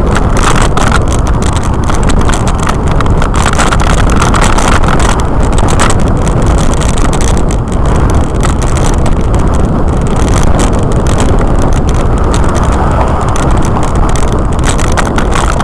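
Wind buffeting the microphone of a bicycle-mounted camera while riding, a loud, steady rush strongest in the low end, with road and traffic noise underneath.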